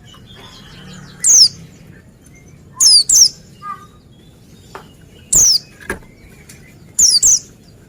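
White-eye (pleci) calling with sharp, very high downslurred whistles, given singly or in quick pairs about every two seconds, with faint twittering between.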